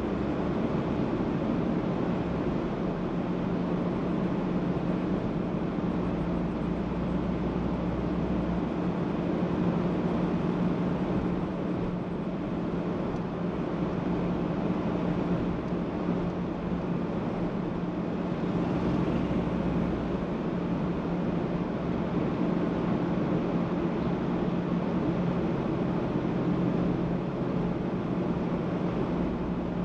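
Car driving at a steady speed: a continuous rush of tyre and road noise under a steady low drone.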